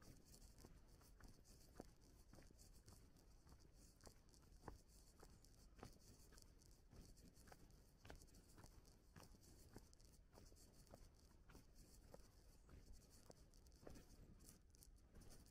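Faint footsteps of someone walking at a steady pace, about two steps a second, over a low steady hiss.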